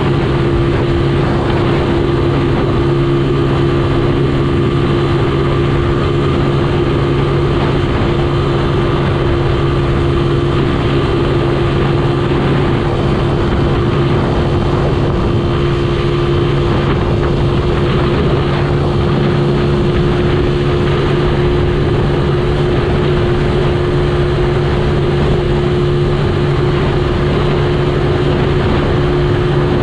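Motorcycle engine running at a steady cruising speed, holding one pitch with no gear changes, under a constant rush of wind and road noise.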